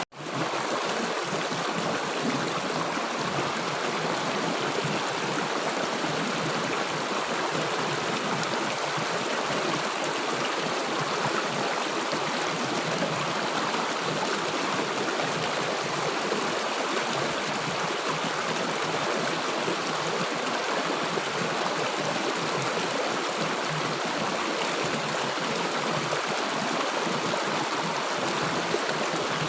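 River water rushing and gurgling over its bed in a steady, unbroken flow, with a momentary gap in the sound right at the start.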